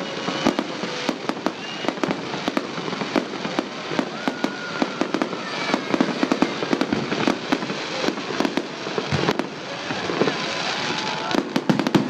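Fireworks salute: many sharp bangs in quick succession over continuous crackling.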